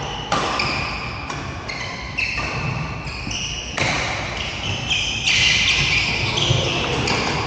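Badminton rally sounds in a sports hall: rackets striking the shuttlecock with sharp hits a second or so apart, and shoes squeaking on the court floor, all echoing in the hall.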